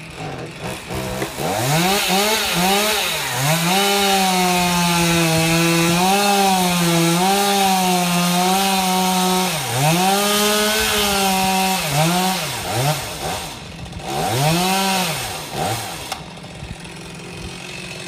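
Chainsaw cutting into a eucalyptus trunk, its engine note held high with repeated short dips as the chain digs into the wood. Near the end it is revved in a few short blips, then drops back to a quieter idle.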